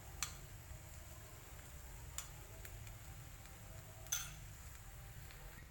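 Instant noodles, sausage and eggs frying quietly in a pan over a low gas flame: a faint steady low rumble with three soft ticks, the loudest about four seconds in.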